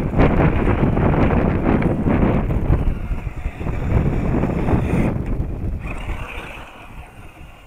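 Wind buffeting the microphone, easing off over the last couple of seconds.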